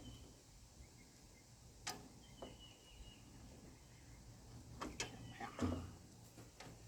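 Quiet clicks and knocks of hand tools on metal while fitting a tractor starter, the loudest a dull knock about five and a half seconds in. A faint thin high chirp comes and goes.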